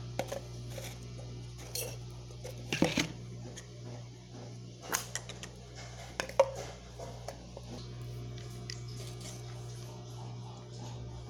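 Scattered light clicks and knocks of a spoon and containers being handled while mixing slime, over a steady low hum.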